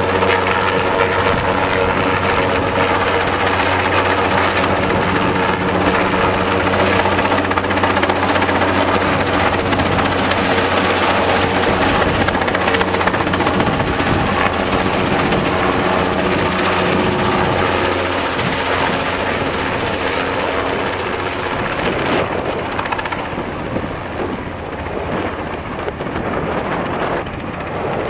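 Helicopter flying with a rooftop HVAC unit slung on a long line, its rotor and engine making a steady loud drone that gets quieter over the last several seconds as it moves away.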